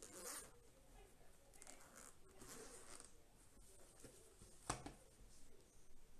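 Zipper on a black zippered action-camera carry case being pulled open in a few short, rasping strokes, faint. A single sharp knock comes about three-quarters of the way through.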